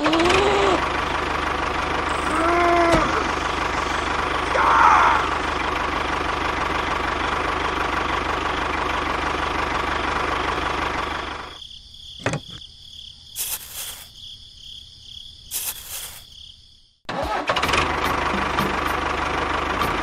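A small motor running steadily with a hum. It cuts off abruptly about halfway through, leaving a few clicks and knocks and a moment of silence, then starts running again near the end.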